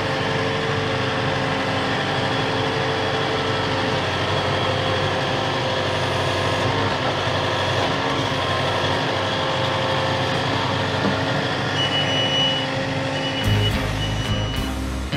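Tractor engine running steadily. A few short high beeps come near the end, and background music comes in just before it ends.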